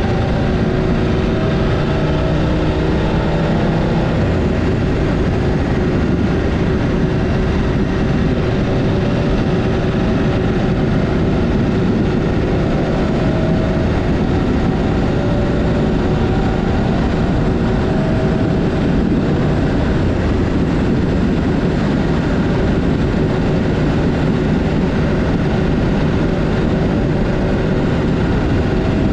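Adventure motorbike riding along at a steady speed: the engine's hum is mixed with wind and road noise. The engine pitch shifts slightly in the first few seconds.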